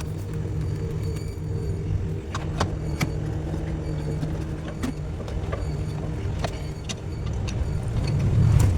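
Mitsubishi 6D40 straight-six diesel engine idling steadily on a cold morning after a hard start, with scattered sharp ticks. Its note swells louder just before the end.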